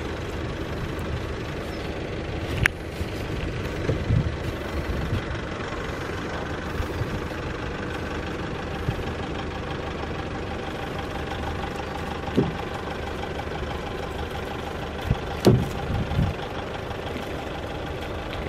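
A vehicle engine idling steadily, with a few sharp knocks and thumps over it; the loudest comes near the end.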